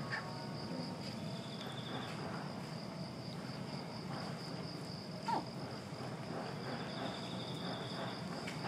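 Insects stridulating in a steady high drone, with a faster pulsing trill joining twice. A short, louder call with a bending pitch cuts in once about five seconds in, over a low outdoor rumble.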